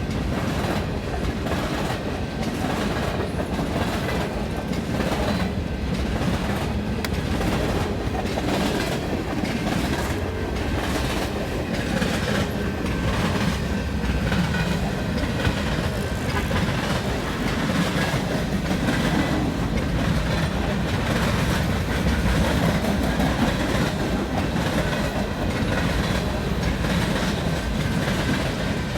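Canadian Pacific train rolling past: a steady rumble of the cars with a recurring clickety-clack of wheels over the rail joints.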